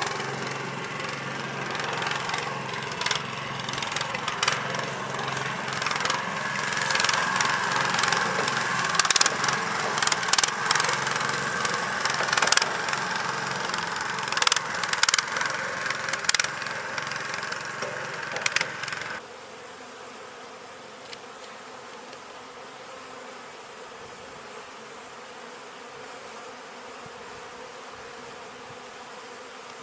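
A vehicle engine running as it drives off over rough ground, with repeated knocks and rattles. About two-thirds of the way through it cuts off abruptly to a quieter steady hum of honeybees buzzing around the hives.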